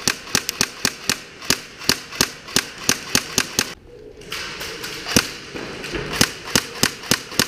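Airsoft guns firing a rapid run of single shots, sharp pops about three a second, with a brief pause about halfway through.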